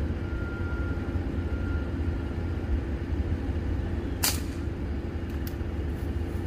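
A vehicle engine idling steadily, with a single sharp crack about four seconds in.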